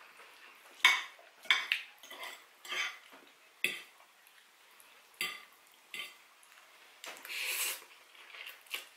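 Metal fork clinking and scraping against a ceramic plate while twirling fried noodles, about eight separate sharp clinks. Near the end a forkful of noodles is slurped in with a brief hissing suck.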